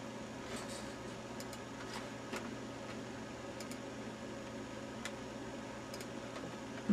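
Quiet room tone with a steady low hum, broken by a few faint, irregularly spaced computer mouse clicks.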